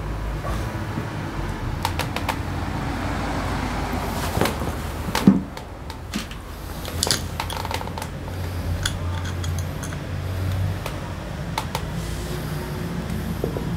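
Small metal starter-motor parts and a wrench clicking and clinking against each other and the concrete floor as they are handled, with a sharp knock about five seconds in, over a steady low hum.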